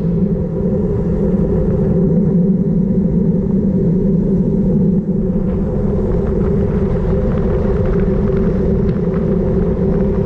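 Steady low rumble of wind buffeting a GoPro's microphone on a bicycle descending at speed, with faint light ticks in the second half.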